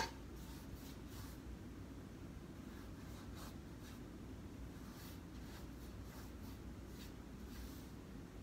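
Faint, irregular scratchy swishes of a paintbrush stroking paint onto a canvas, over a low steady room hum. One sharp click at the very start.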